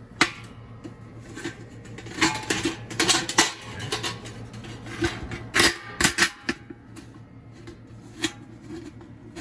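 Sheet-metal parts of a homemade gasifier stove clinking, knocking and scraping as a notched piece is worked into place by hand: irregular metallic clicks, with a flurry of them a couple of seconds in and a louder pair of knocks about six seconds in.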